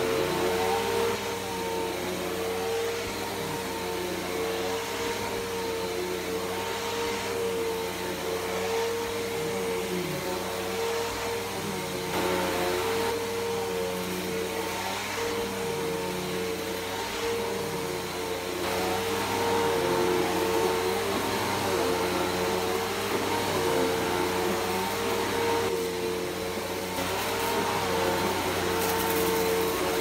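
Bissell PowerForce Helix Turbo upright vacuum cleaner running steadily on carpet, with a constant motor hum over the rush of its suction. Its loudness swells and dips slightly every few seconds as it is pushed back and forth.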